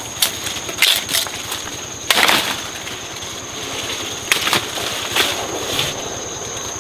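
Irregular sharp knocks and short scraping strikes, about eight of them, the longest about two seconds in, over a steady outdoor background with a thin, steady high-pitched insect whine.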